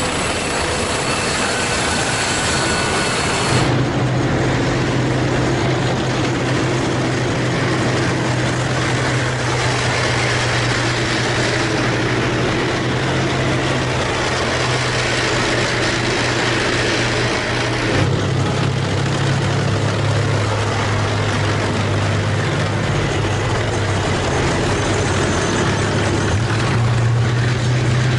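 Tracked tanks driving past at close range: a loud, steady low engine drone with rumble from the tracks. A thin high whine is heard in the first few seconds. The drone changes abruptly about four seconds in and again about eighteen seconds in, as different tanks pass.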